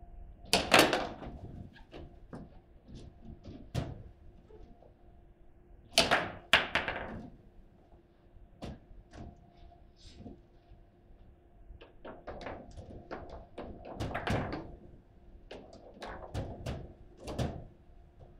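Table football in fast play: sharp clacks and bangs of the ball being struck by the player figures and hitting the table, and of the rods being slammed. The hits come in clusters of rapid knocks about a second in, around six seconds in, and again through the last third, with scattered single clacks between.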